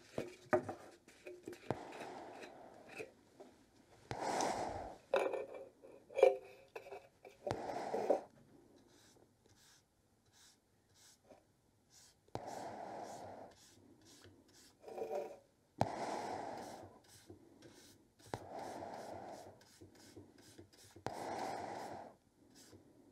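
Paintbrush swishing alcohol-based wood stain across a sanded, shellac-sealed wooden board in separate strokes about a second long each. In the first half, clicks and short taps from the metal stain tin as it is opened and the brush is loaded.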